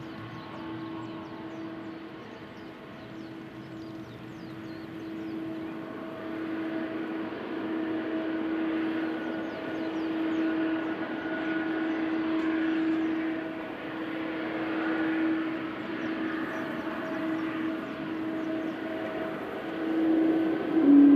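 Boeing 777-300 airliner's twin jet engines running at low thrust as it moves slowly along the runway: a steady whine with a low hum, growing gradually louder, with a sharp rise in loudness near the end.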